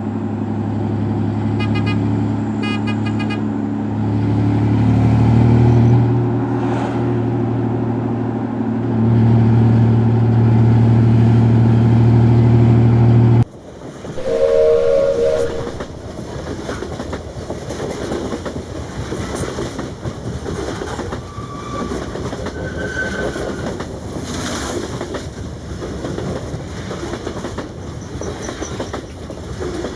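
Train sounds: a long, low, steady horn-like chord for roughly the first half that cuts off suddenly, then the steady rumble and clatter of a train running on the rails, with a short horn toot just after the cut.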